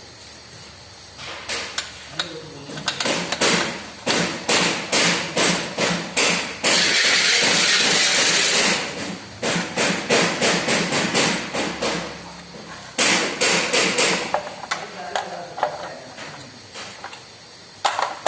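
Repeated sharp knocks, about two a second, broken by a loud hiss lasting about two seconds and a shorter, weaker one later.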